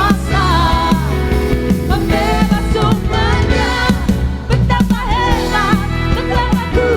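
Worship band and singers performing a praise song live, voices in harmony over a steady beat with bass and keyboard.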